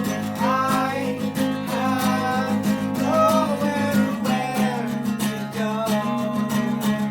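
Song with strummed acoustic guitar keeping a steady rhythm under a gliding melody line.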